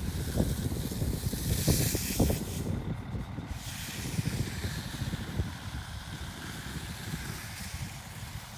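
Wind buffeting the microphone outdoors: a fluttering low rumble that eases off over the second half, with a brief hiss about two seconds in.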